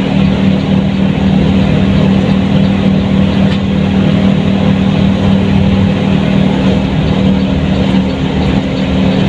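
Front-engined Mercedes-Benz 1623 bus's diesel engine running steadily under way, a constant low drone mixed with road noise.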